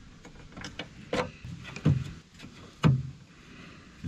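Hand tools knocking and clinking on the mower's steel body as a spanner is worked on a small nut and bolt: a few sharp knocks, the three loudest about a second apart.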